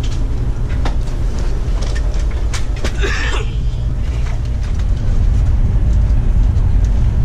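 Steady low rumble inside a Taiwan High Speed Rail carriage in motion, with a few sharp clicks and a brief rustle about three seconds in; the rumble grows louder about five seconds in.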